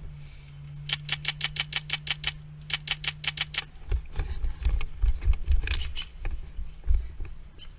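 Airsoft SR-25 rifle replica firing two rapid strings of shots, about eight a second, with a short pause between them. These are followed by irregular low thumps and knocks.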